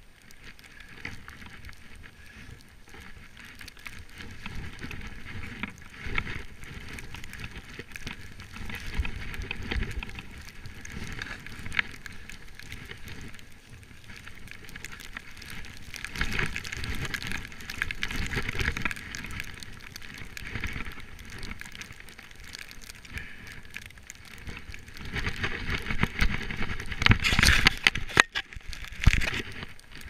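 Skis hissing and swishing through deep powder snow during a descent, the sound swelling and fading with each turn and growing louder and choppier near the end.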